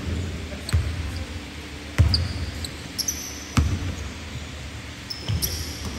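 A basketball bouncing on a hardwood court: four separate thumps, irregularly spaced about a second or more apart, each echoing in the large hall. Short high sneaker squeaks come in between.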